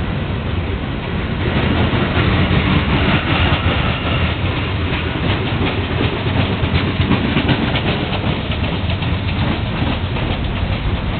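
Freight cars rolling past as they are shoved by the locomotives, their steel wheels clicking over the rail joints, with the clicks coming thick and fast from about five seconds in.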